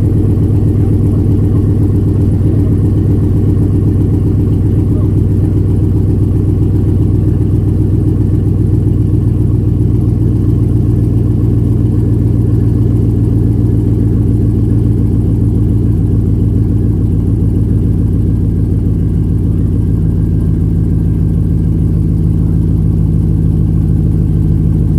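Hummer H2's LQ4 V8, bored to 6.2 litres, with CNC-ported LS6 heads and a Melling stage 2 cam, running at a steady idle. This is its first start after the head swap, not yet tuned.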